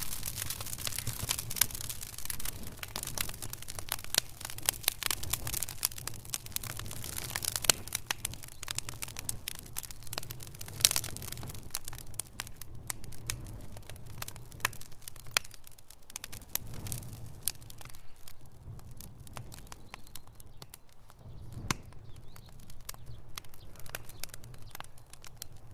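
Campfire burning with continuous irregular crackling and sharp pops over a low rumble of flame; the crackling is densest in the first half and thins out later, with a few louder pops in between.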